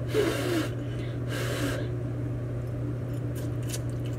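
A person blowing on a forkful of hot ramen noodles to cool it: two breathy puffs within the first two seconds, then a few soft mouth clicks near the end as the bite is taken.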